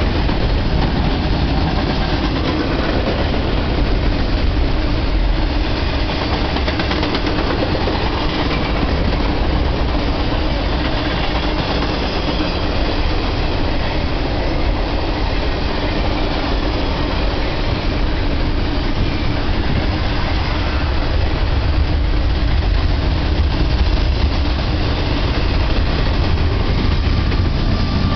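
Double-stack intermodal freight train rolling past: a steady rumble and rattle of loaded container well cars on the rails, heaviest in the low end.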